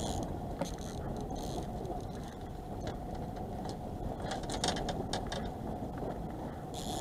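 Fishing reel working in short spells while a hooked fish is played on a bent rod, over a steady low rumble of wind and boat noise.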